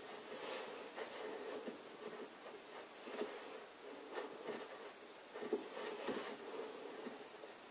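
Faint rubbing of a fingertip smearing blue oil paint over the polished steel taper of a lathe spindle journal, with a few light ticks. The paint is being spread as a substitute for engineering blue, to show where the journal bears in its bronze bearing.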